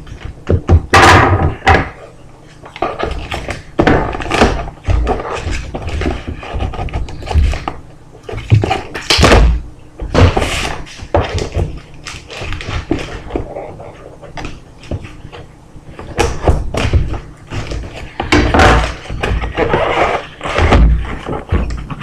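Rustling and repeated thuds and knocks of packaging and items being handled and taken out of a shipping box.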